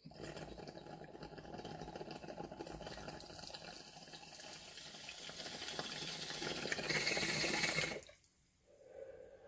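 Water bubbling in a glass dab rig as it is drawn through on a long inhale, getting louder over its last few seconds and cutting off abruptly about eight seconds in.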